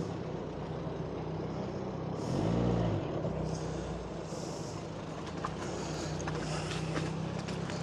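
Car engine running slowly close by as a car pulls away and drives past at walking pace, its engine note swelling and falling back briefly about two and a half seconds in.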